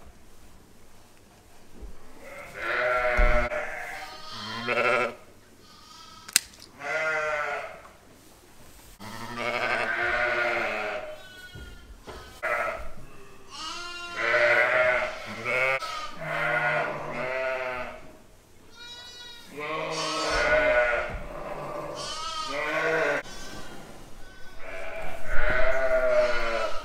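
Sheep bleating over and over, ewes and their newborn lambs, deeper ewe calls mixed with higher lamb calls, each with a quavering tone. A single sharp click sounds about six seconds in.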